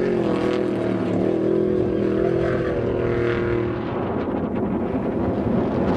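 Unlimited-class trophy truck's engine running hard as the truck passes, its pitch dipping and rising slightly. About four seconds in the engine tone drops away, leaving wind noise on the microphone.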